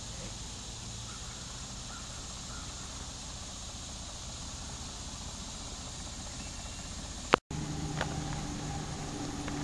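Steady outdoor background hiss with a low hum. About seven seconds in, a sharp click and a brief dropout at a cut, followed by a somewhat louder steady hum with several held tones, like a distant motor.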